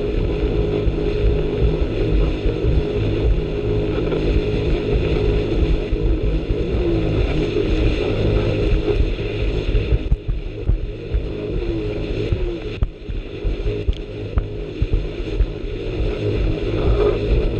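Jet ski engine running steadily at high revs, around 6,200 rpm at cruising speed, with wind buffeting the open microphone. The sound eases briefly about two-thirds of the way through.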